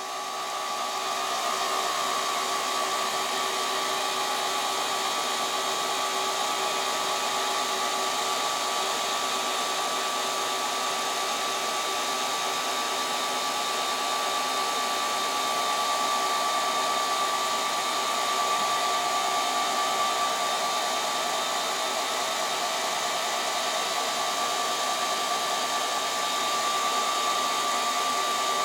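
Ceiling fan running at a steady speed: a continuous whir with a thin, steady high whine through it.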